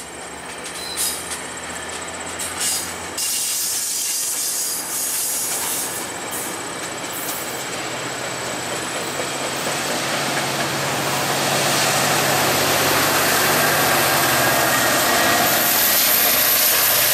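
GO Transit bilevel passenger coaches rolling past on a departing train, with a couple of sharp wheel clacks in the first few seconds. The sound grows louder from about two-thirds of the way through as the MP40PH-3C diesel locomotive pushing at the rear comes alongside, its engine adding a low steady hum.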